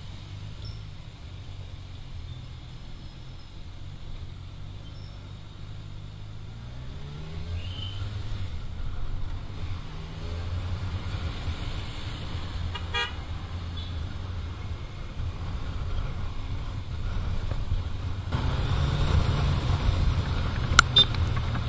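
Motorcycle engine idling in traffic, then revving up and pulling away, its pitch rising as the bike gathers speed. A short vehicle horn toot sounds about halfway through, and wind and road noise grow louder near the end, with one sharp click.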